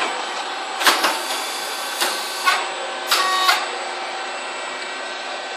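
Grain-puffing machine popping potato pellets into chips: several sharp pops in the first three and a half seconds, some followed by a brief hiss, over the machine's steady running noise. After that only the running noise is left.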